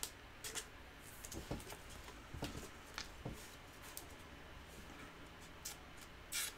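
Trading cards being handled at a table: faint, scattered small clicks and slides of card against card, with a short swish near the end.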